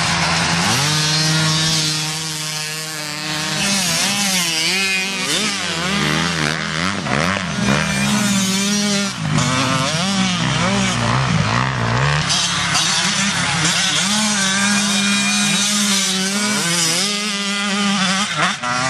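Several motocross bikes' engines revving up and down as they ride the track, overlapping at different pitches, with the engine notes rising and falling through gear changes and throttle.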